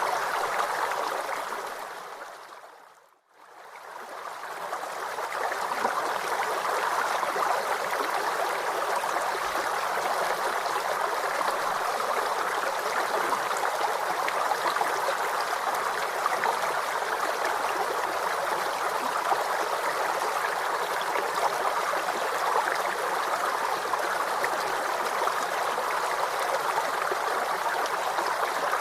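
Waterfall rushing steadily, an even hiss of falling water. Near the start it fades away to almost nothing for a moment, then swells back up to a steady level.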